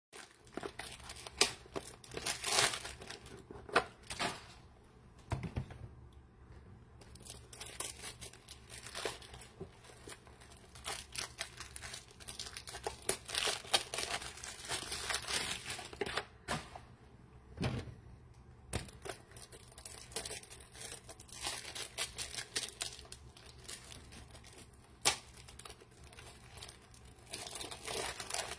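Intermittent crinkling and rustling with scattered sharp clicks and knocks.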